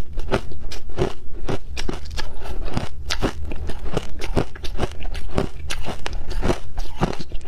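Close-up chewing of a mouthful of shaved ice coated in matcha powder: a steady run of crisp crunches, about three a second.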